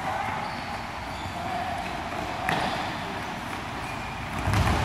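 Futsal ball kicked on an indoor court, two sharp thuds about two seconds apart echoing in a large hall.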